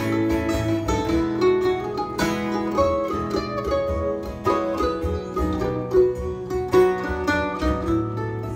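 Mandolin and acoustic guitar playing an instrumental passage together, the mandolin picking a run of short melody notes over the guitar's chords.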